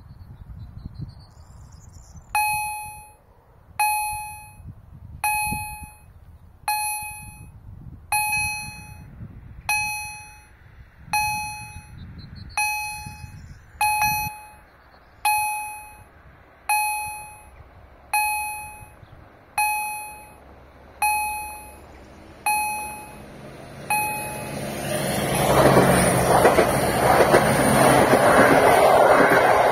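Electronic gong of an automatic level crossing (an EHL-S10 generator) striking about once every 1.4 seconds, each strike a ringing tone that fades away, warning that a train is coming. From about 24 seconds in, an SA138 diesel railcar with a coach passes over the crossing, and its loud rolling and engine noise swallows the gong.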